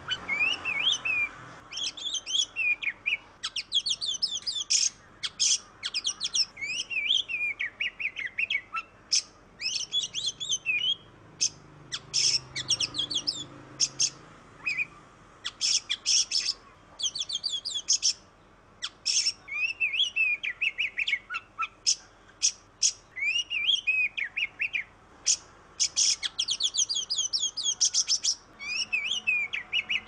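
Oriental magpie-robin (kacer) in full song: a long run of quick, varied whistled notes and very fast trills, delivered in phrases broken by short pauses.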